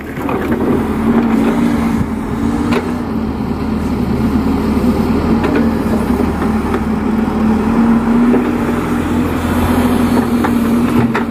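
Kato HD512E crawler excavator's diesel engine running steadily under load while it works the arm and bucket, digging and dumping soil. A few sharp knocks sound over the drone.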